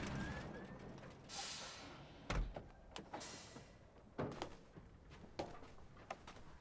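Quiet handling sounds: a short swish, a dull thump about two seconds in, another swish, then scattered clicks and knocks.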